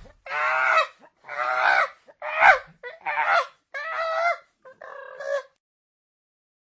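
Goose honking: a run of six harsh honks, the last one weaker.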